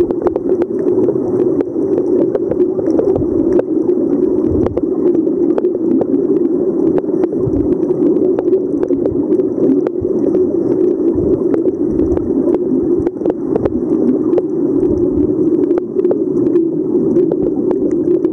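Muffled underwater sound picked up through a camera's waterproof housing: a steady low hum with scattered sharp clicks and occasional low rumbles.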